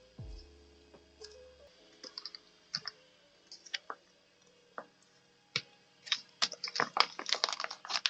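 Stationery being handled on a journal page: light clicks, taps and paper crinkles, a few scattered at first, then coming thick and fast over the last two seconds.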